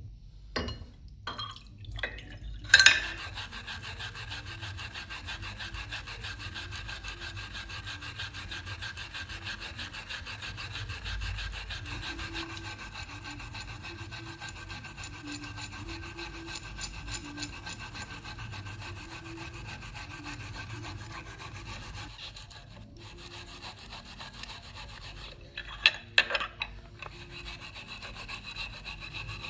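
A power tool grinding or sanding the rusty pocket knife, running steadily with a fixed whine over a rough abrasive rasp. There are a few sharp knocks in the first seconds and again near the end.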